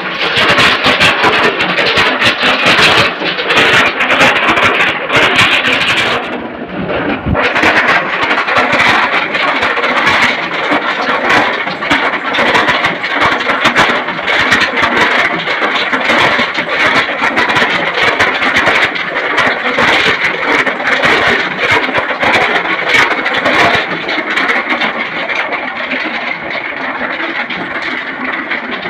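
Engine-driven drum mill grinding gold ore, running loudly with a dense rattle of rock tumbling inside the drum. There is a short drop about six seconds in, then the machine noise carries on steadily.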